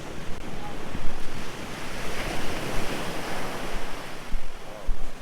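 Wind buffeting the microphone over a steady rushing noise, in uneven gusts.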